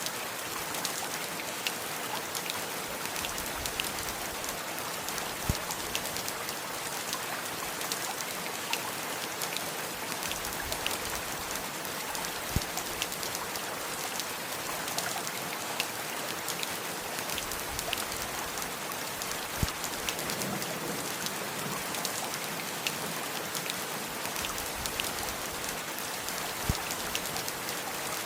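Steady rain falling, a continuous hiss with scattered sharp taps of single drops striking close by.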